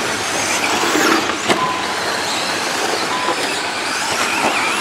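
Radio-controlled short-course and stadium trucks racing on a dirt track: motors whining briefly as they accelerate, tyres on loose dirt, with one sharp knock about a second and a half in.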